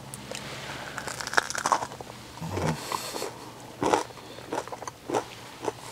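Biting into and chewing a crunchy breaded seitan (wheat-gluten) vegan fried chicken piece: a string of short, crisp crunches and crackles.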